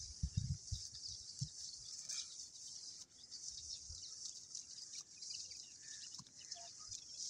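Faint rural outdoor ambience: a steady high hiss with a few faint bird chirps, and several low thumps in the first second and a half.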